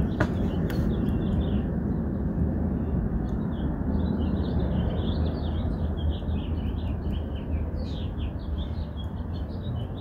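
Small birds chirping over a steady low outdoor background noise, with a single sharp click right at the start.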